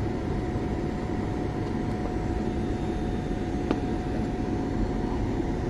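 Steady cabin noise of a Boeing 737 MAX airliner on descent: an even rumble of engines and airflow with a thin steady whine over it, and one faint click a little past halfway.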